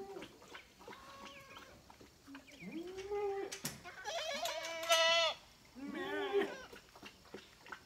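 Goats bleating: about four wavering calls, the longest and loudest about four seconds in.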